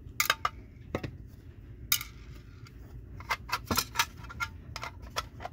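Light clicks and taps of a plastic display base and a diecast model truck being handled. About fifteen short, irregular ticks, bunched closer together in the second half.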